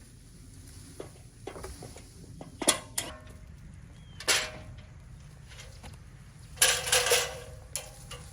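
Metal clanking and clinking: a few separate knocks with a short ring, then a rattling cluster of them about seven seconds in.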